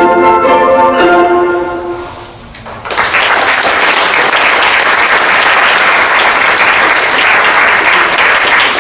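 Instrumental music ends on a held final chord that dies away over about two seconds, then the audience breaks into loud, sustained applause about three seconds in.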